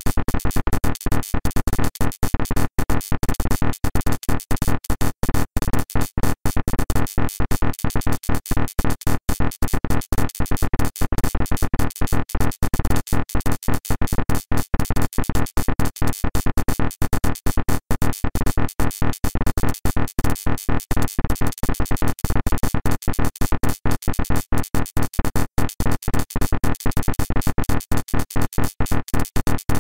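Electronic background music with synthesizer, rapidly chopped so that it cuts in and out several times a second.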